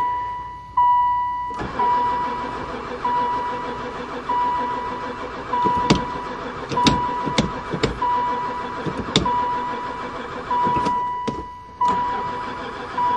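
A van's starter cranks the engine for about ten seconds, starting about a second and a half in and stopping near the end, without the engine firing, even with gas poured into the intake; the owner puts this down to no spark. A warning chime beeps about once a second throughout.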